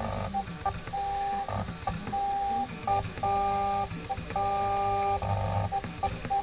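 Stepper motors of a small USB-controlled CNC machine whining as its axes make a string of short moves. Each move is a steady tone lasting under a second, with brief pauses and changes in pitch between them.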